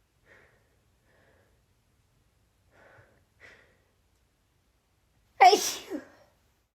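A woman sneezing: a few faint short catches of breath, then one loud sneeze about five and a half seconds in, with a smaller second burst right after it.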